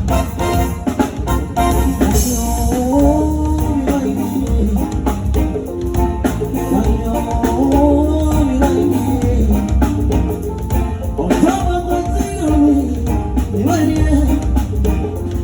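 Live band playing with a singer's voice carrying the melody over a drum kit and bass.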